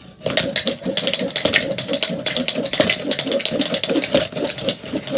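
Dice rattling and clicking rapidly inside a cup that is swept quickly back and forth across a hardwood floor, stacking the dice. The rattle starts about a quarter second in and continues fast and dense.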